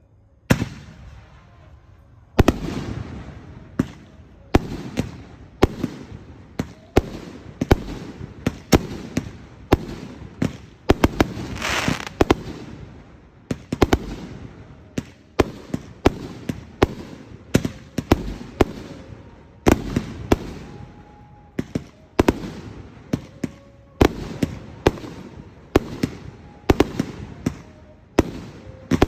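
Fireworks display: shells bursting one after another, a sharp bang every half second to a second with crackling decay between, starting about half a second in.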